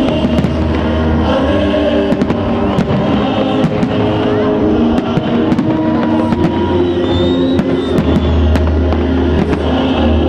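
Festival fireworks going off in many sharp, irregular bangs and crackles, over loud music playing.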